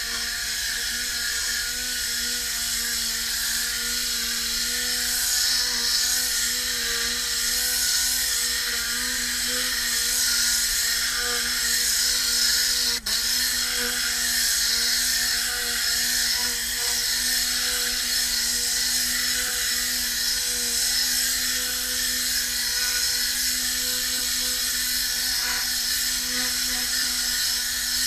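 Tornador air cleaning gun blowing compressed air into car carpet: a steady hiss with a whirring hum from the spinning nozzle tube, with a momentary break about halfway through.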